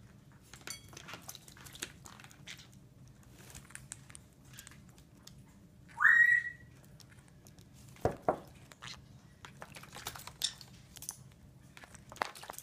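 A young green-cheeked conure gives one short, rising, whistle-like call about six seconds in, the loudest sound here. Around it are scattered light taps and clicks, with two sharper knocks about eight seconds in.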